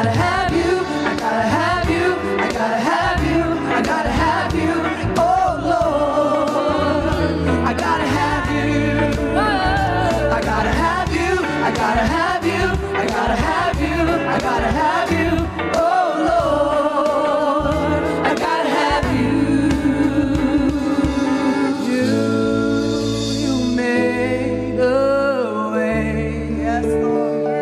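Gospel singing with several voices over a band, with sustained chords and a bass line under the voices.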